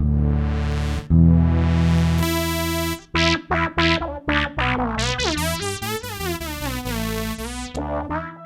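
Electric bass played through effects pedals that make it sound like a synthesizer: a couple of long held notes, then short choppy notes, then notes that swoop up and down in pitch.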